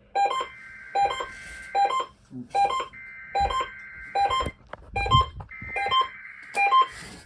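Emergency Alert System SAME header: three bursts of harsh, buzzy digital data tones, each about a second to a second and a half long with short gaps between them, marking the start of an EAS test. A regular beeping pulse repeats about every 0.8 s underneath.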